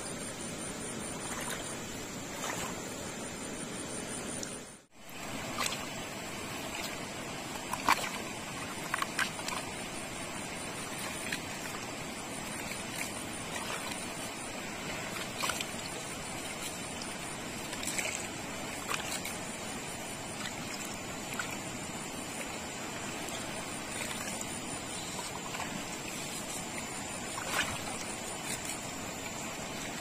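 Steady rush of a fast-flowing river, with scattered sharp clicks and knocks of a knife blade chopping and splitting a fresh bamboo shoot into shreds. A steady high whine with a pulsing edge runs over it, and the sound cuts out for a moment about five seconds in.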